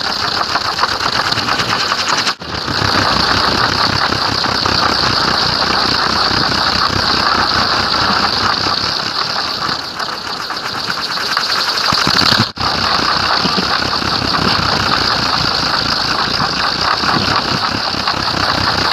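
Large wooden kolecer, a Sundanese wind-driven propeller on a bamboo pole, spinning fast in the wind with a loud, steady rumbling whir. The sound breaks off briefly twice.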